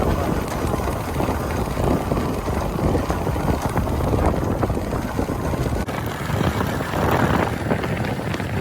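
Small Hero motorcycle riding along an off-road track, its engine running under wind buffeting the microphone.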